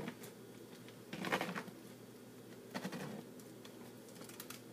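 OXO Good Grips pineapple corer twisted down through a fresh pineapple, its blade scraping through the fibrous, juicy flesh in two short bursts, with a few light clicks near the end as it nears the bottom.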